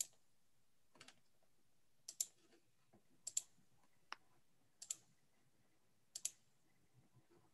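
Faint, sparse computer clicks from a mouse and keyboard, often in quick pairs, about one group every second. They come from the Zoom breakout rooms being set up.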